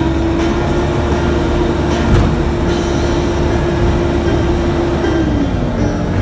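Cat 420D backhoe loader's diesel engine running steadily under load with a low rumble and a steady whine, which drops in pitch about five seconds in as the engine slows. A single knock sounds about two seconds in.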